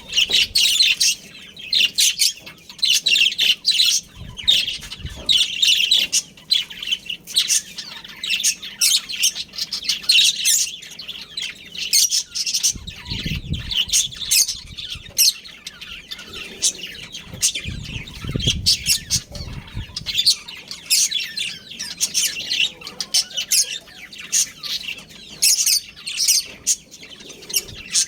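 Budgerigars chirping and chattering continuously in quick, overlapping high calls. A few low muffled bumps come in between, about four, thirteen and eighteen seconds in.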